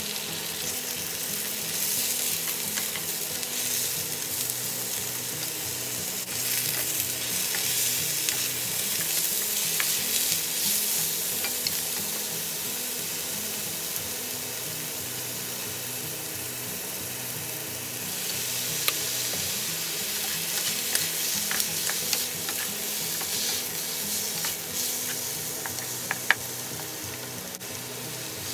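Strips of Korean fish cake (eomuk) and mushrooms sizzling in oil in a non-stick frying pan while being stirred and turned with wooden spatulas. A few sharp taps of the spatulas on the pan come in the second half.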